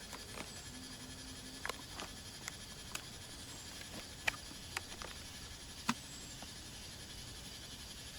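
Scattered light clicks and taps, about a dozen at irregular intervals, over a steady faint hiss.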